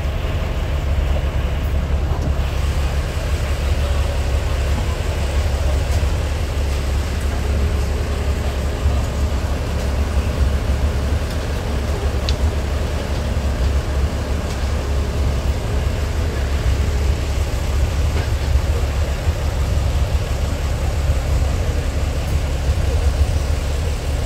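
Diesel engine of the DR2303 railcar running steadily, a deep, even rumble heard from inside its passenger cabin.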